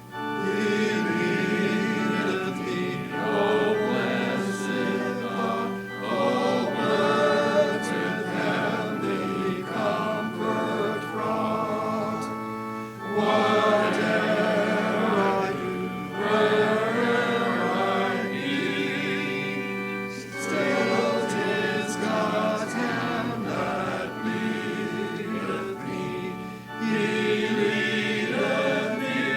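Church congregation singing a hymn to organ accompaniment, in phrases with short breaks for breath between lines.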